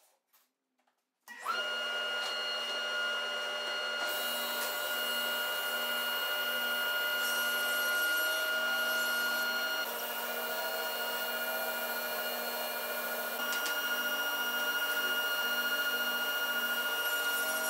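Table saw switched on about a second in, its motor running steadily with a whine while a sheet of 3/4-inch plywood is fed through the blade. An added hiss from about four seconds in marks the blade cutting the plywood.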